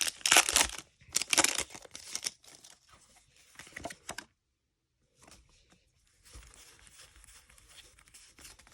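Pokémon card booster pack wrapper being torn open: loud ripping and crinkling over the first two seconds, then quieter crinkling, and faint rustling after a brief break.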